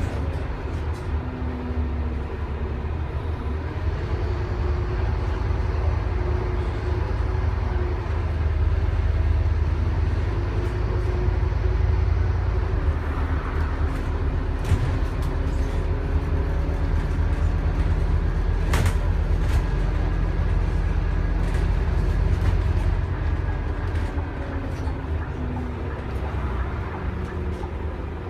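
Scania N230UD double-decker bus's five-cylinder diesel engine pulling uphill, heard from inside the bus near the front. The engine's rumble and note rise and fall as the load and revs change, and there is one sharp knock about two-thirds of the way through.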